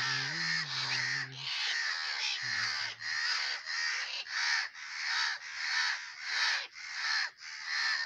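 Crows cawing, a steady run of overlapping harsh caws about one every half second to second. This is typical of crows gathering in alarm over a dead crow.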